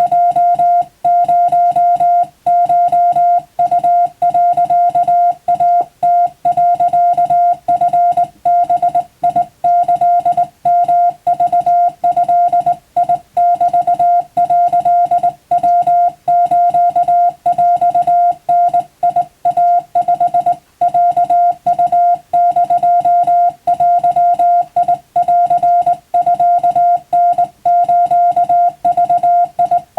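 Morse code sidetone: a single beep at one steady pitch, keyed on and off in a fast, unbroken run of short dots and longer dashes, sending Japanese wabun telegraph code.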